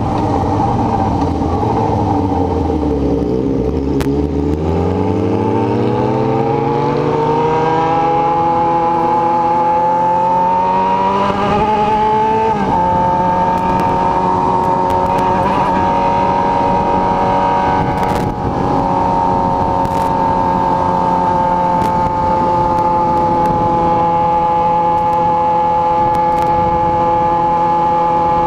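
Yamaha XJ6 N motorcycle's inline-four engine under way. The revs fall over the first few seconds, then climb steadily for about eight seconds, drop at a gear change about twelve seconds in, and then hold a steady cruising note.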